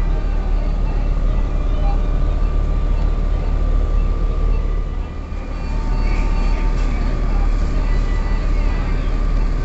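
Plasmapheresis machine running during therapeutic plasma exchange, its separation centrifuge and pumps making a steady low hum with a thin, steady whine above it.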